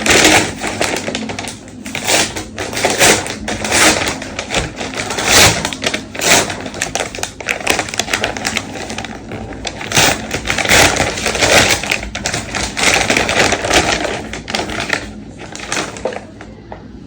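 Packaging being handled: dense, irregular crackling and rustling with many small clicks and knocks, easing off near the end.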